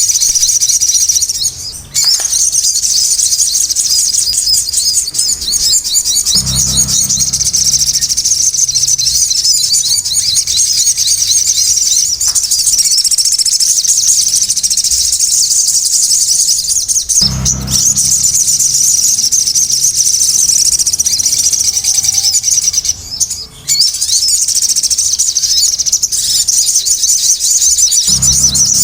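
Sogon (crimson sunbird) song: a busy, nonstop stream of rapid high-pitched chirps and twitters, the lively full song that keepers play to set silent sogons singing again. A few short low thumps come through now and then.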